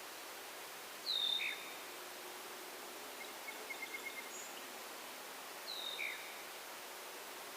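A songbird giving the same two-note call twice, a high down-slurred note followed by a lower one, with a quick run of soft chips between the calls, over a steady hiss.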